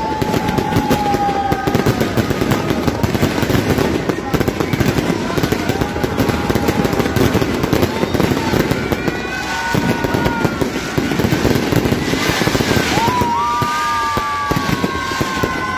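Fireworks display crackling and popping without a break, a dense rapid crackle from the exploding pyrotechnics. Over it, several long high tones slowly fall in pitch, the strongest near the end.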